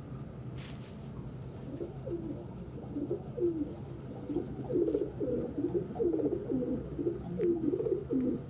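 Domestic pigeons cooing: a quick run of short, low coos begins about two seconds in and goes on almost to the end, over a faint steady hum.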